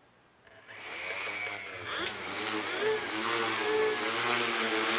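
The Chiindii quadcopter's four brushless motors and propellers start about half a second in and spin up into a steady whirring whine. The pitch wavers up and down as the flight controller varies motor speeds to hold the craft level on the tuning jig.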